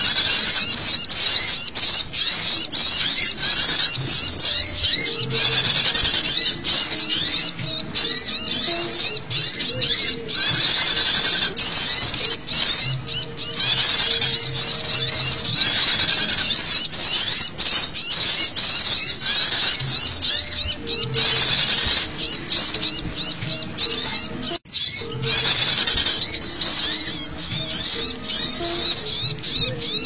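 Bird-lure recording of many small songbirds calling at once, such as sunbirds and white-eyes. It is a loud, busy mass of rapid, high-pitched chirps and trills overlapping without a break. Low steady tones come and go underneath, and the agitated, noisy calling is meant to draw small wild birds in.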